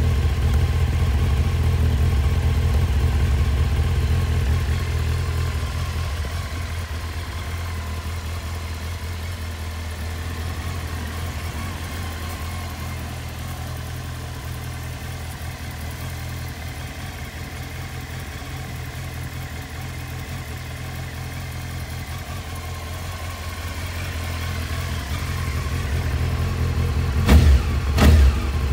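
1996 Honda CBR900RR Fireblade (SC33) inline-four engine idling steadily through a polished aluminium silencer, with two short throttle blips near the end.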